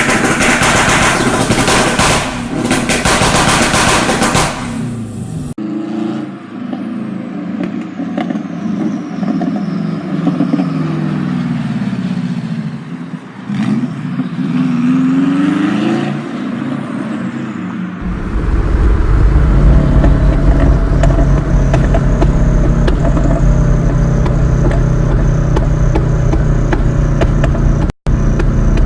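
Turbocharged Subaru WRX flat-four: first a few seconds of rapid loud crackling exhaust pops and backfires, then the engine revving up and down through gear changes, then a loud steady low drone with a thin high whine over it.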